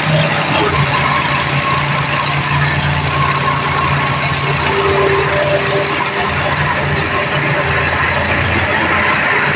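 Tata Hitachi excavator's diesel engine running steadily, with a steady low drone under it.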